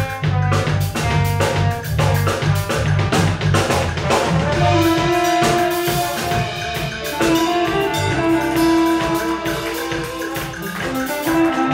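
Live band playing contemporary Yoruba-style music: drum kit and hand drums keep a steady beat over a busy bass line and guitar. About halfway through, long held melody notes come in while the bass drops back.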